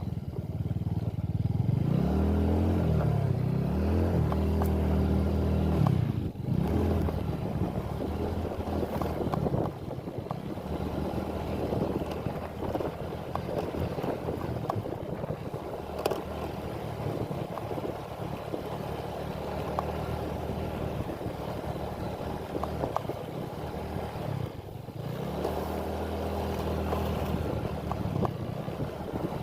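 A small engine running, its pitch rising and falling near the start and again near the end, with a rougher, less even stretch between.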